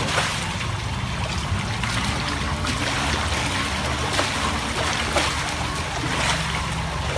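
Steady rush of flowing, splashing rainwater, with an engine running low underneath.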